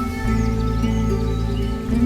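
Gentle, calm background music with sustained low notes and soft chords that change about every second, with short high chirps over it.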